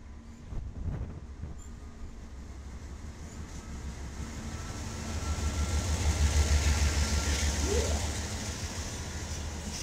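BNSF diesel freight locomotives passing close by, their low engine rumble swelling to its loudest about six to seven seconds in as they go past, then easing as the freight cars follow.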